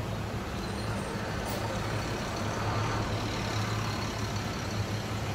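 Road traffic noise with a steady low engine hum running under it, and a brief high hiss about a second and a half in.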